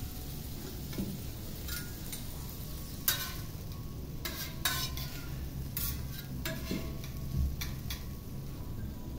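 Metal spatula scraping and clinking on a teppanyaki flat-top griddle, several short sharp strokes as food is pushed and lifted, with food sizzling over a low steady hum.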